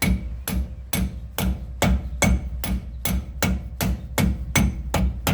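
Plastic face of a soft hammer tapping a seal-driver cup, about four even strikes a second, each a sharp knock with a short ring. It is driving a new pinion seal into a truck's rear differential housing until the seal sits fully seated.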